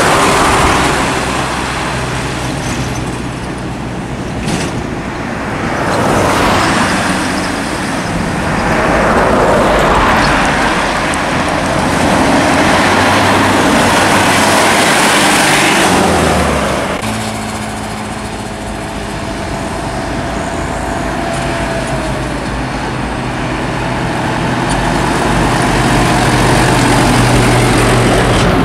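Light-duty diesel trucks, Isuzu Elf and Mitsubishi Fuso Canter, driving past one after another on a highway: a low engine drone with tyre and road noise that swells as each truck passes and then fades. The sound changes abruptly partway through.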